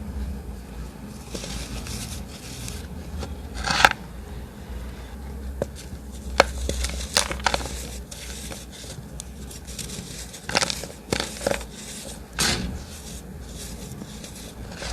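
Gym chalk being crushed by hand: soft crumbling and scraping, broken by sharp crunches every second or two, the loudest about four seconds in. A steady low hum runs underneath.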